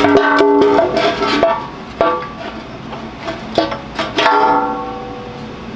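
Background music played on a plucked string instrument, with notes picked out one at a time that ring and fade, a few seconds apart.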